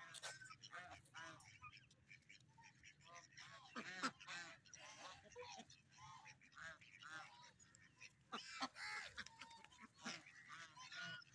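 A flock of domestic mallard-type ducks calling, many short quacks and chattering calls overlapping, with the loudest call about four seconds in.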